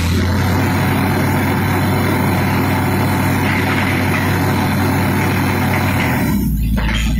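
Watertec 9000 well-drilling rig's engine running steadily, a low hum with a broad mechanical noise over it. About six seconds in, the engine note drops lower and the higher noise fades.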